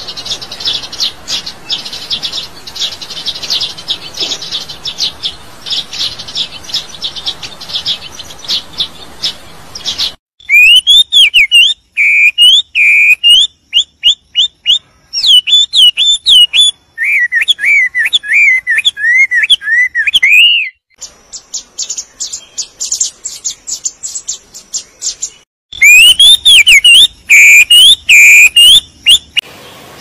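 Birds singing: a dense run of rapid, high chirps, then loud, clear whistled notes sliding up and down. The two kinds of song switch back and forth abruptly a few times.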